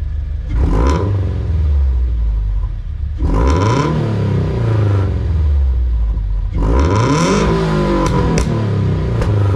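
Subaru BRZ flat-four (boxer) engine revved three times through an Invidia N1 exhaust fitted with a bolt-in tip silencer: a short blip, then two longer revs that rise and fall back to idle. A few sharp cracks come near the end as the revs drop.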